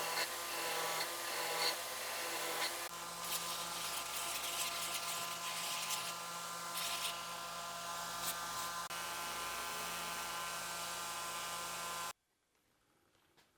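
Small electric power tool running steadily while working the knife handle, rasping over the first few seconds, then stopping abruptly near the end.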